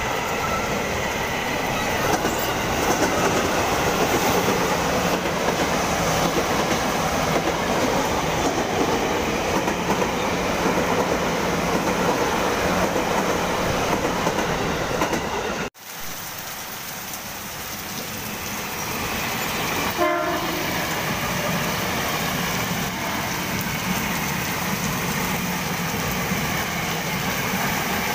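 KRL Commuter Line electric multiple-unit trains passing at speed: a steady loud rush of wheels on rail with clickety-clack, in heavy rain. About halfway through the sound cuts abruptly to a second passing train, and a short train horn blast sounds a few seconds later.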